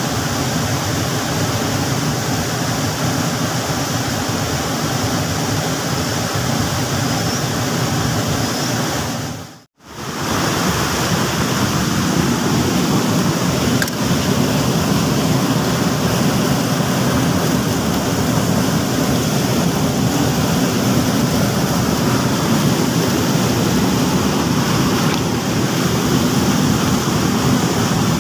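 Small waterfall in a rocky stream, its white water rushing steadily. The sound cuts out abruptly for a moment about ten seconds in, then returns.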